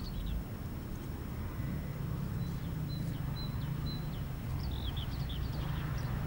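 Low rumble of the rebuilt Bulleid West Country Pacific 34027 'Taw Valley', a three-cylinder steam locomotive, heard at a distance working a train and growing slightly louder as it approaches. Small birds chirp over it near the start and again about five seconds in.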